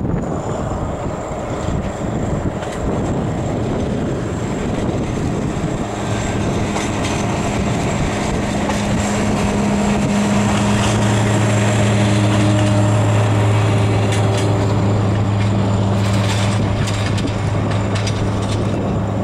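X 2800-series diesel railcar X 2830 approaching and passing: a steady low engine drone grows in from about six seconds in, is loudest through the middle, and carries on as it goes by. Wind buffets the microphone.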